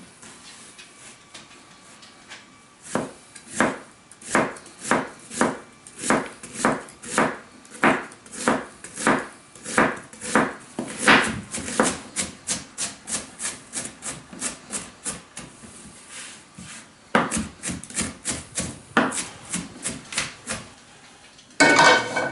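Chef's knife chopping an onion on a plastic cutting board: a long run of sharp knife strikes, about two a second, quickening in the middle and pausing briefly before resuming. A louder, denser clatter starts near the end.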